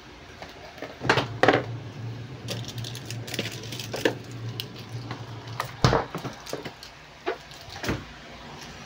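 Knocks, clicks and clatter of things being handled at an open freezer, with a heavier thump about six seconds in. A low steady hum runs under the clatter from about a second in until shortly before the thump.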